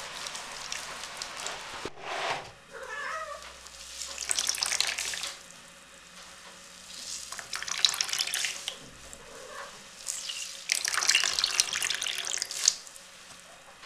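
Wet felted wool hat being kneaded and wrung out by hand in a plastic basin of soapy water: splashing, squelching and water pouring off it back into the basin, in several bursts.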